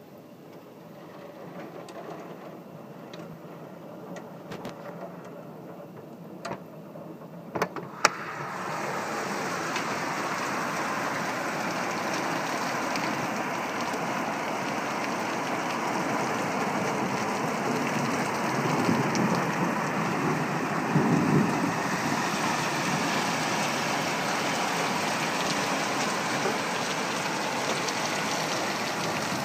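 Heavy rain coming down, lighter at first with a few sharp ticks of drops striking close by, then swelling suddenly about eight seconds in to a steady, dense downpour. A low rumble swells briefly around twenty seconds in.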